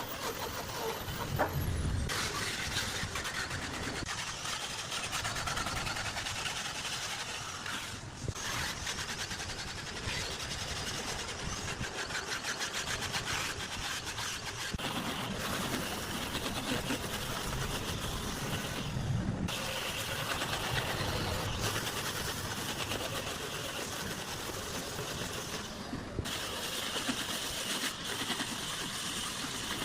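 Heavy woodworking machinery running steadily. The sound changes abruptly several times, as separate stretches of work are joined together.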